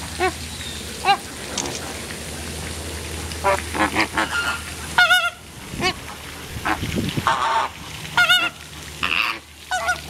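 A flock of American flamingos honking: short goose-like calls, one after another and sometimes overlapping.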